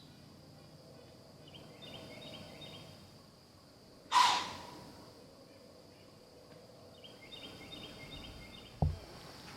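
A whitetail deer's alarm blow: one sharp, loud, breathy snort about four seconds in, the warning a deer gives when it has spotted a hunter. Insects chirp in short rhythmic runs, and a dull thump comes near the end.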